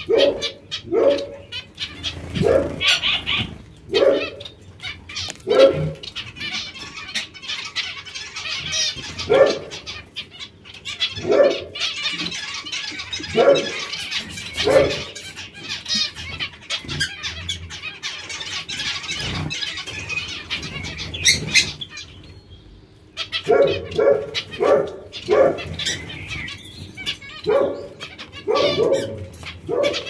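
A colony of aviary finches, zebra finches among them, calling: short pitched calls come every second or two over a continuous high twittering of many birds. The calls break off briefly a little after the middle.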